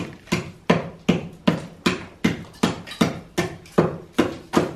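Hammer blows on old brick and mortar, knocking brick out of a masonry pier: a steady run of sharp strikes, about three a second.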